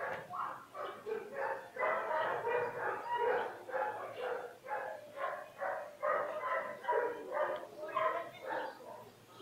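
Small dog barking over and over in a quick, even rhythm of about three barks a second, without a pause.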